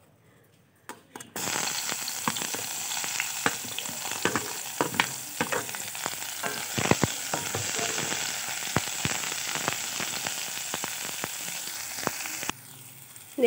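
Sliced red onions frying in hot mustard oil in a stainless steel pan. The oil bursts into a steady sizzle about a second in, as the onions go in, with sharp crackles and clicks throughout, and drops sharply quieter near the end.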